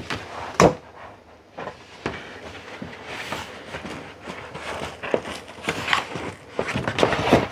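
A large sheet of stiff printed paperboard, a cake-box blank, being handled and folded on a countertop: rustling and scraping with scattered knocks and taps, the sharpest just under a second in and a few more near the end.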